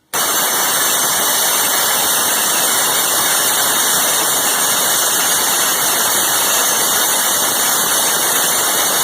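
The Alarm Master timer's alarm going off on schedule: a loud, steady, noisy ring that starts abruptly and holds without a break, sounding for its programmed 10-second duration.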